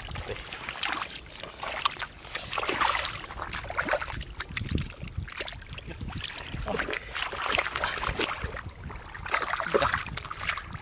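Bare feet and hands squelching and sloshing in soft wet mud and shallow muddy water, in irregular bursts with small wet clicks and splashes.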